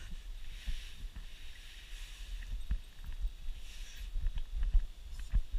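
Muffled low thumps and knocks from someone moving about and handling gear at close range, over a faint steady hiss. The loudest knocks come near the end.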